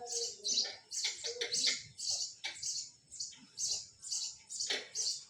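Birds chirping: a run of short, high-pitched chirps, about two a second.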